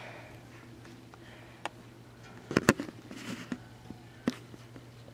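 A few scattered sharp knocks and clicks over a low steady hum. A close double knock about two and a half seconds in is the loudest.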